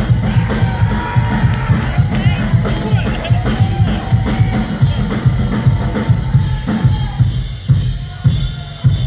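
Noise-rock band playing live through a club PA, heard from within the crowd. A drum kit drives a fast, steady kick-and-snare beat under electric guitar and bass.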